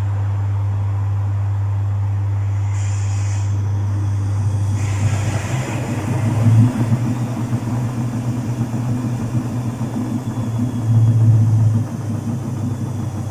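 Domus 8 kg washing machine running mid-cycle with a full load. A steady low hum turns rough and uneven about four and a half seconds in, swelling louder twice. Two short hissing bursts come a little before and just after the change.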